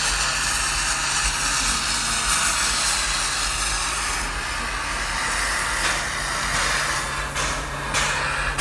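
Steam locomotive venting steam: a steady loud hiss over a low constant hum and rumble, with a few short sharp clicks near the end.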